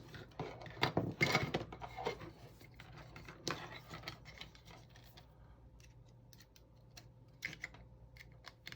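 Small 3D-printed plastic parts being handled and fitted together: scattered light clicks and brief scrapes, busiest in the first couple of seconds and again near the end, over a faint steady hum.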